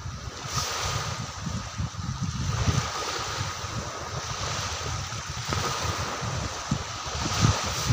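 Wind buffeting the microphone in uneven gusts, over a steady outdoor hiss.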